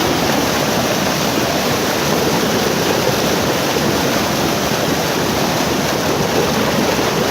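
Steady rush of flowing water, unbroken throughout.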